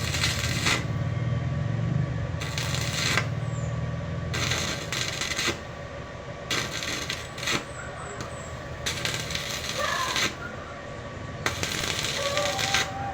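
Arc welding done as a string of short welds: the arc crackles and sizzles for about a second at a time, about six times, with a steady low hum underneath.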